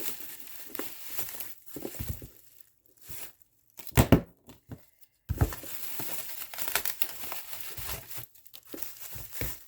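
Packaging being handled during an unboxing: crinkling and tearing in irregular rustles, loudest about four seconds in.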